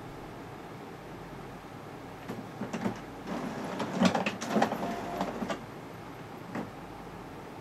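HP Officejet Pro 8100 inkjet printer's internal mechanism working: a run of clicks, clatter and a short motor whir lasting about three seconds from a couple of seconds in, then a single click near the end, over a steady hiss.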